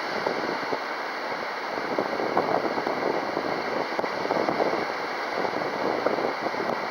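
Strong wind buffeting the microphone: a steady rushing noise that swells and drops with the gusts.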